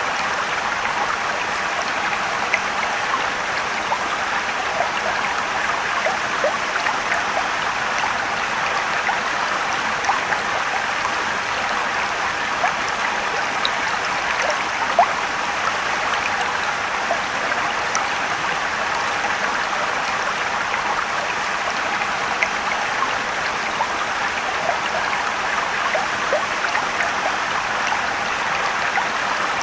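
Steady rushing and trickling of a mountain stream and waterfall, with small splashes scattered through it.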